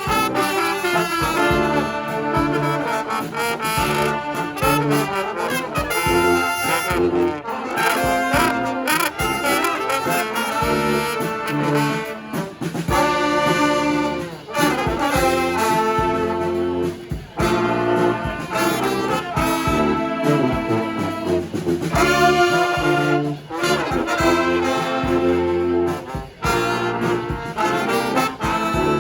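Live brass band playing a tune, with trombones and trumpets carrying the music.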